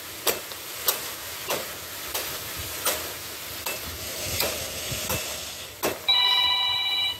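Machete chopping green jelly coconuts: a series of sharp chops, about one every half-second to second. Near the end a mobile phone starts ringing with a loud, steady electronic tone.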